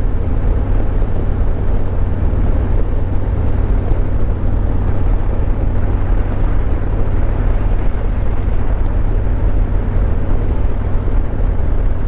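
2022 Harley-Davidson Road Glide Limited's Milwaukee-Eight 114 V-twin running at a steady cruise, with wind rushing over the microphone.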